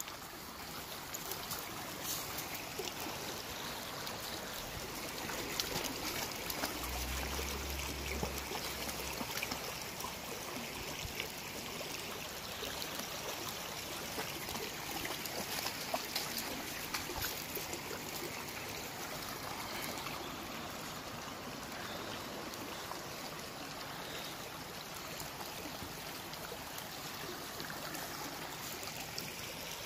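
Shallow creek flowing over a stony bed and through a pile of logs: a steady trickling rush of water.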